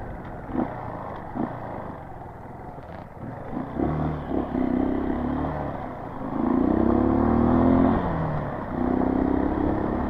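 Motorcycle engine pulling away under acceleration: quieter at first with a few knocks, then running harder from about four seconds in, its pitch climbing, dropping back near the eight-second mark, and climbing again.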